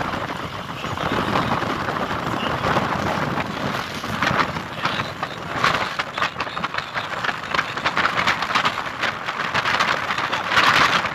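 Steady rushing noise of a vehicle driving over rough ground, with many irregular knocks and rattles from about four seconds in.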